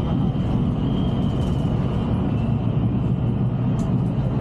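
Volvo B11R coach under way, heard from inside the front of the cabin: a steady low drone of the diesel engine and tyres on the road.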